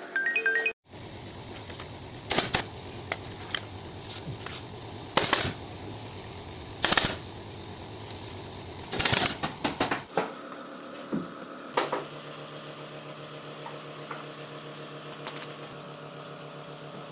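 Sharp single clacks of upholstery work on a sofa, a few seconds apart with a quick cluster of several about nine seconds in, over a steady background hum.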